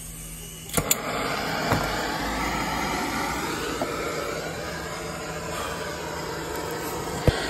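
Handheld gas torch lit with two quick clicks, then burning with a steady hiss as its flame heats a copper fitting for soldering. Another sharp click comes near the end.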